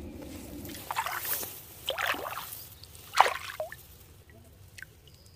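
Shallow water sloshing and splashing: three splashes about a second apart, the third the loudest.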